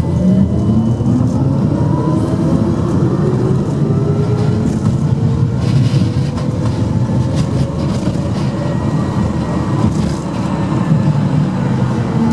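Ganz tram running along the track, heard from inside: a low rumble of wheels on rails under an electric motor whine that climbs in pitch over the first couple of seconds and then wavers, with a few sharp clicks from the track about six and ten seconds in.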